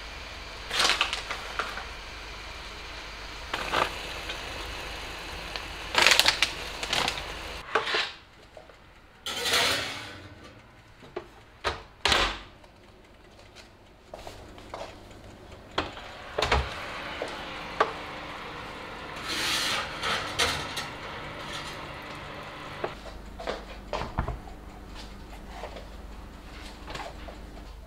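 Kitchen handling sounds: a stainless steel frying pan and utensils clinking, knocking and scraping as the pan is slid onto an oven rack and set down, scattered short knocks over a low steady hiss.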